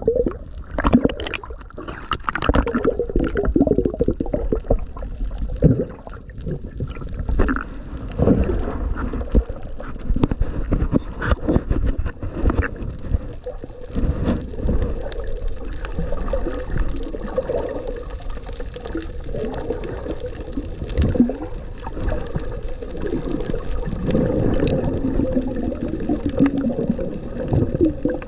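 Muffled underwater sound picked up by a submerged camera: water moving and gurgling against it, with irregular low thumps and swells.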